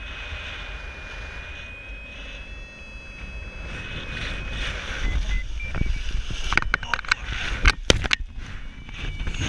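Paraglider in flight: a steady rush of wind over the microphone, with thin electronic tones stepping in pitch through the first half. Then, from about six and a half to eight seconds, a run of sharp cracks and buffets as turbulent rotor air hits and the wing partly collapses on one side.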